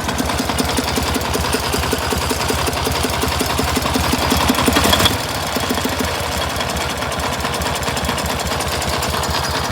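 1967 K-750 motorcycle's flathead flat-twin engine running with an even beat just after starting. It is a little louder for the first five seconds, then settles slightly lower and steady at idle. At idle the dull knock the owner hears from the air filter is practically not heard.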